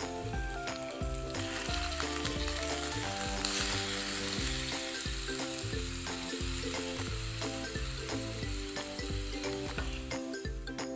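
Beef chunks frying with garlic and shallots in hot oil in a frying pan, a steady sizzle that grows stronger about a second and a half in. The meat is being stirred with a plastic spatula. Soft background music plays underneath.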